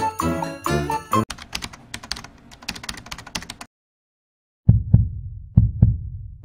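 Light background music that stops about a second in, then a run of fading clicks, a short silence, and an outro sound effect of deep paired thumps like a heartbeat.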